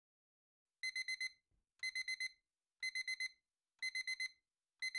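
Digital alarm-clock beeping: quick groups of four high beeps, repeated about once a second, starting about a second in. It signals that the five-minute timer has run out.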